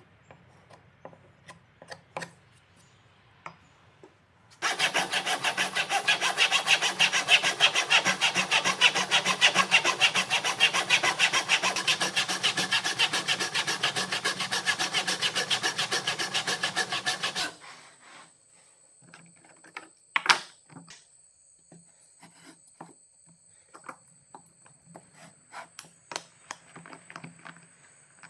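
Fine-toothed hand saw, guided by a wooden block, cutting into a softwood beam with fast, even rasping strokes. The sawing starts about five seconds in and runs for about thirteen seconds. It is framed by light taps and clicks, and a single sharp knock follows a few seconds after the sawing stops.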